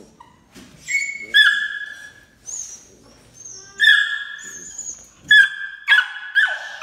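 Puppy yipping and whining: a string of high-pitched yelps and whines, coming faster and overlapping near the end.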